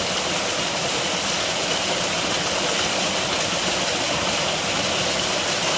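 Steady rush of a flowing stream, an even hiss of running water with no separate splashes.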